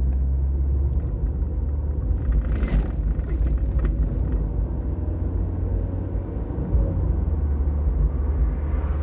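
Mazda MX-5's four-cylinder engine and tyres cruising along a country road, heard from inside the cabin: a steady low rumble, with a brief rush of noise between two and three seconds in.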